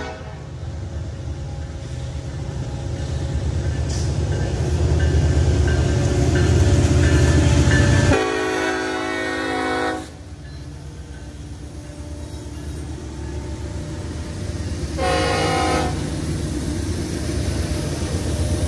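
Union Pacific freight train's diesel locomotives approaching and passing, engines rumbling louder as they near. The multi-tone horn sounds a long blast about eight seconds in, a short one about fifteen seconds in, and starts another near the end.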